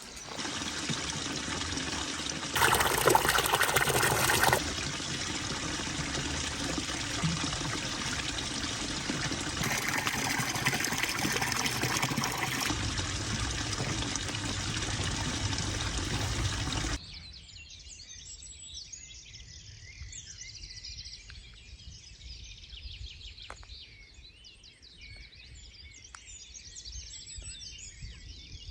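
Running water trickling and splashing, changing in loudness and character in abrupt steps. About 17 seconds in it cuts off suddenly to a quieter outdoor ambience with faint bird chirps.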